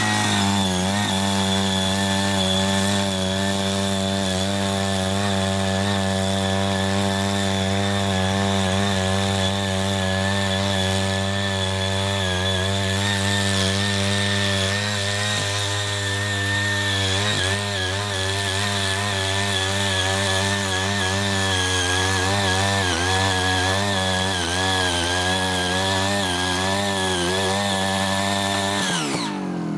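CY80 foldable mini tiller's small engine running steadily while the tiller cuts a furrow through hard, uncultivated soil. The pitch wavers a little in the second half and falls near the end.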